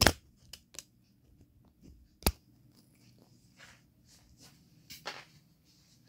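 Handling noise from the recording phone being moved: a sharp click right at the start, another loud click a little over two seconds in and a softer one near the end, with light ticks and rustles between, over a faint low room hum.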